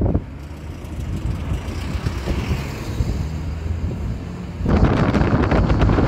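Steady low road and engine rumble of a moving car heard from inside. About three-quarters of the way through, a loud buffeting wind rush on the microphone suddenly cuts in over it.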